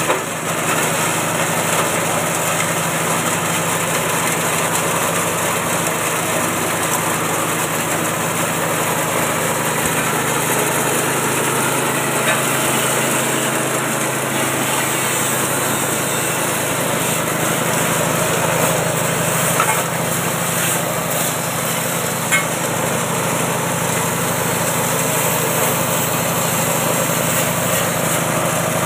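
Small 6.5 hp engine running steadily, belt-driving a 3-in-1 feed chopper and grinding mill as material is fed into its hopper. A few brief clicks of material in the mill rise above the steady running.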